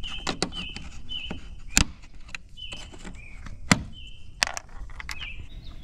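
Plastic push-type trim clips being pried out of an upper trim panel with a metal trim-removal tool: a string of sharp clicks and snaps, the two loudest about two seconds apart. Short high squeaks recur every half second or so.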